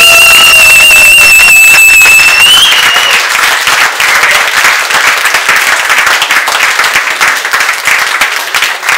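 Audience applauding, with one long, really loud whistle from a person that holds one pitch, rises slightly and stops about three seconds in.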